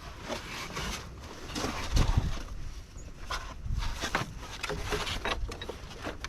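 Scattered clicks, knocks and scrapes of hands and metal working a car battery's hold-down clamp, which won't seat, with a dull thud about two seconds in.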